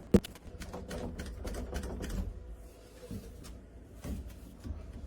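Irregular clicks and knocks from a portable plastic door lock being handled and latched, with one sharp click just after the start.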